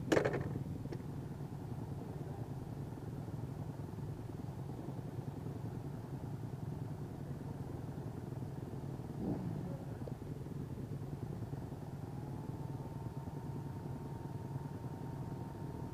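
Honda CRF dirt bike's single-cylinder engine idling steadily while the bike stands still. There is a sharp knock right at the start, and a faint steady high tone joins about twelve seconds in.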